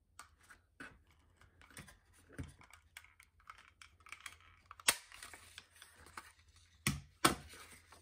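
Handheld 1¼-inch circle punch being positioned and squeezed through patterned paper, with small clicks of the plastic punch and paper rustling, then sharp snaps as the punch cuts through: one about five seconds in and two close together near the end, punching out circles.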